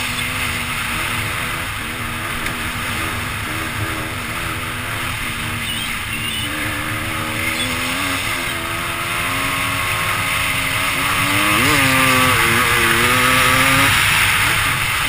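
Dirt bike engine running at speed over a steady rushing noise, its pitch wavering with the throttle. About two-thirds of the way through there is a sharp rev up and back down, and the engine runs louder for a few seconds after it.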